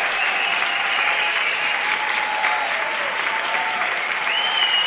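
Large theatre audience applauding steadily, with some cheering over the clapping.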